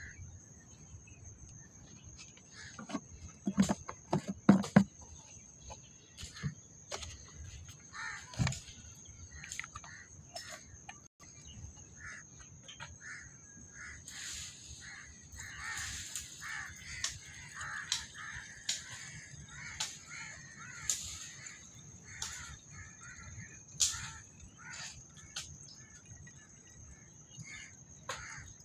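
Crows cawing on and off over a steady high insect drone, with a few loud knocks about three to five seconds in.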